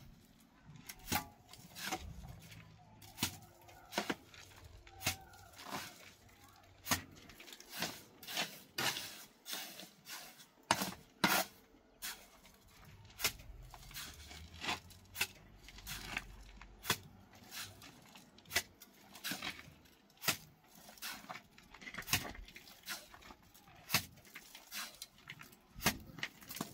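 Irregular sharp taps and knocks, about one or two a second.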